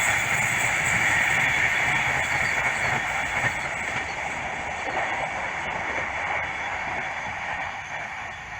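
Train running along the rails and fading steadily as it moves away.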